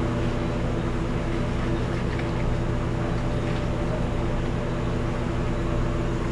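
Steady mechanical hum of a fan or motor, an even drone that does not change, with a few faint ticks now and then.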